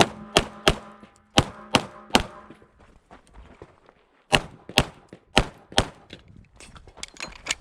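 Sig Sauer P320 XFIVE pistol with a ported barrel fired rapidly in pairs, about ten shots. Three quick pairs come in the first two seconds, then a gap of about two seconds, then two more pairs.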